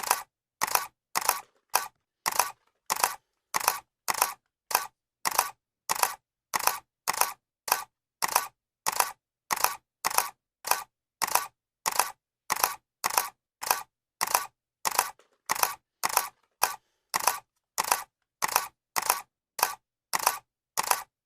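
Camera shutter clicking over and over at an even pace of about two clicks a second, each click short and sharp with silence between.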